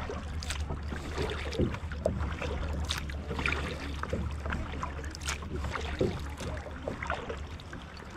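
Kayak paddling: the paddle dips and splashes, and water drips and laps at the hull in short, irregular splashes about once a second, over a steady low rumble.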